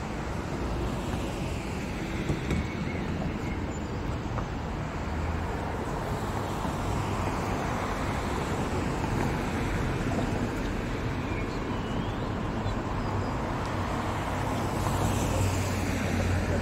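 Steady city road-traffic noise, an even low rumble with passing vehicles blending in.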